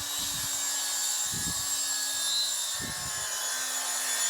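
Electric chop saw running steadily as its blade cuts through aluminium tubing, with a few low knocks.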